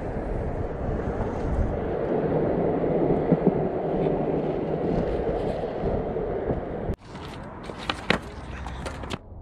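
Skateboard wheels rolling over concrete, a steady rumble that cuts off abruptly about seven seconds in. After the cut, a few sharp clacks and knocks come from the board as a rider stands and balances on it.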